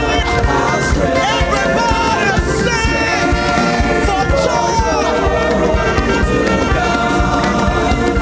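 Live gospel praise music: choir voices singing over a band with a steady drum beat.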